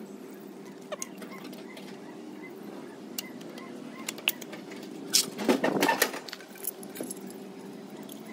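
Metal tools and engine parts clinking and rattling, with a louder burst of clatter about five seconds in, over a steady hum.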